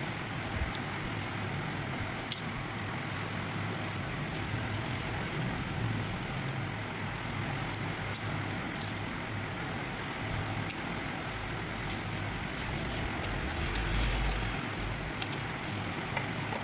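Steady background rumble like street traffic, with a low hum and a few faint clicks; the rumble swells briefly near the end.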